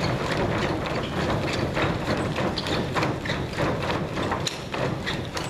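Dense patter of many dancers' sneakers landing and scuffing on a stage floor as a large group jumps and hops together: several irregular thuds a second over a low rumble.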